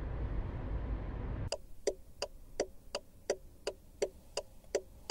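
Steady vehicle driving rumble that cuts off abruptly about a second and a half in, replaced by an even ticking of about three ticks a second from a car's turn-signal indicator.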